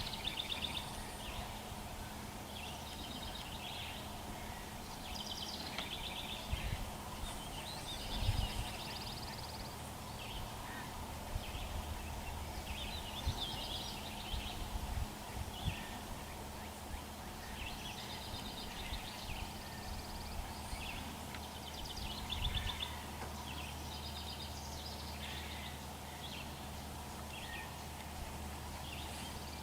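Birds calling again and again in short, fast chattering calls, over a steady low hum with a few brief low thumps.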